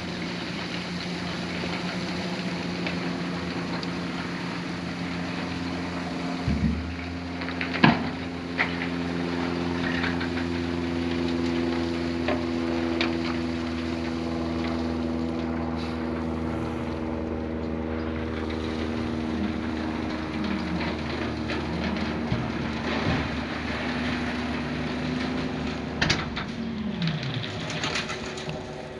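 Heavy vehicle engine running steadily. Its pitch shifts about six seconds in and slides up and down a few times later on, with a few sharp knocks, the loudest about eight seconds in.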